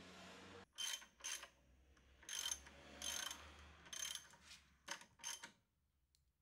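Socket ratchet clicking in about eight short runs as the front brake caliper bolts are turned in, stopping about a second before the end.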